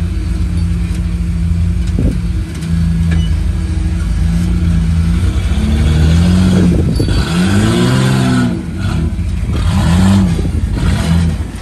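Rock-crawling buggy's engine running at low, steady revs while crawling over boulders, then revving up and down in repeated short blips from about six seconds in as it pulls itself up the rocks.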